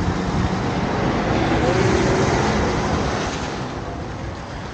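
Road traffic passing close by: a vehicle drives past, swelling to its loudest about two seconds in and then fading away.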